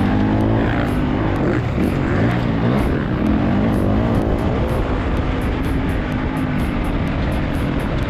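Motocross dirt bike engine heard from onboard while riding, its pitch rising and falling as the throttle opens and closes.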